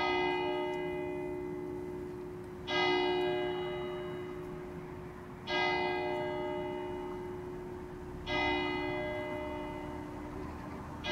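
A single church bell tolling slowly, struck four times at even spacing of about three seconds. Each stroke rings the same note and fades away before the next.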